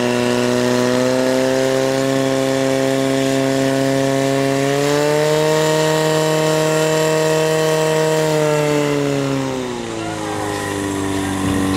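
Portable fire pump's engine running at high revs, feeding water through the hoses to two jets. Its pitch steps up about five seconds in and drops back down near the end.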